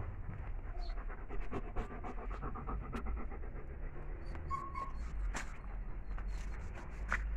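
German Shepherd panting close to the microphone in quick, even breaths, with scattered clicks and rustles.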